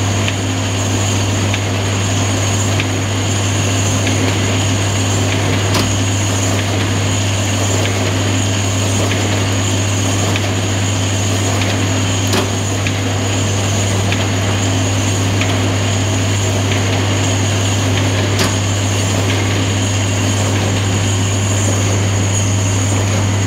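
A paper slitting machine running steadily, with a strong low motor hum under a constant mechanical whir, and a faint click about every six seconds.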